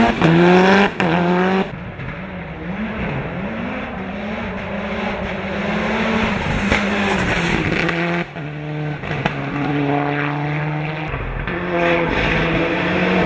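Turbocharged 2.0-litre 4G63 four-cylinder engine of a 650 hp Mitsubishi Eclipse GSX hill-climb car accelerating hard. Its note climbs and drops back several times as it shifts up through the gears.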